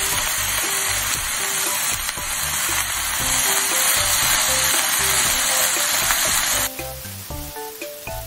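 Vegetables sizzling loudly in hot oil in a frying pan as napa cabbage leaves go in and are stirred with a wooden spatula. The sizzle cuts off suddenly near the end.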